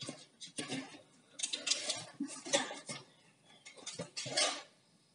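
Metal lock pins on the pump's packing being bent straight and worked loose by hand: a string of irregular metallic clinks and short scrapes.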